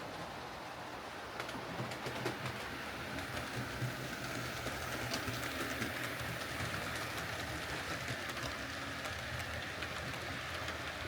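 Hornby OO gauge Battle of Britain class model locomotive running on the track, its small electric motor humming steadily with many light ticks from the wheels on the rails; it runs again now that its disconnected tender wiring has been repaired.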